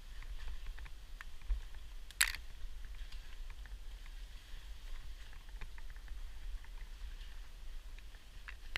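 Caving gear clicking and knocking during a rope descent: scattered faint ticks, with one sharper metallic-sounding click about two seconds in, over a low steady rumble.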